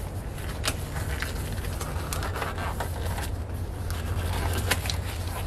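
Blue nitrile glove being pulled onto a hand: scattered small crackles and snaps of the rubber, over a steady low hum.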